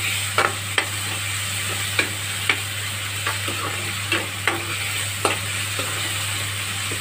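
Chopped onion, tomato and capsicum sizzling in hot oil in an aluminium kadai, while a metal spatula stirs them and scrapes and taps against the pan again and again.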